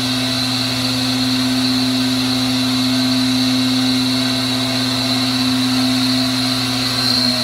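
Flow bench motors running steadily, pulling air through a Harley-Davidson M8 cylinder head port at 28 inches of test pressure. The sound is a loud, even whine and rush of air, and its pitch dips slightly near the end.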